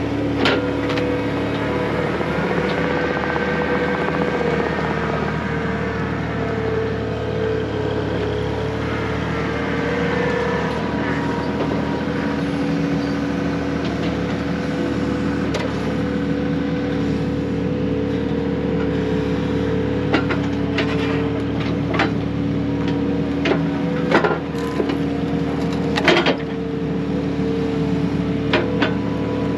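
An engine running at a steady speed, holding one pitch throughout, with a handful of sharp wooden knocks as pieces of firewood strike each other, the last few about two seconds apart.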